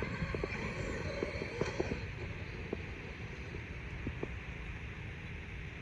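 Traxxas X-Maxx RC monster truck driving over rough ground: a steady low rumble with scattered light clicks and knocks.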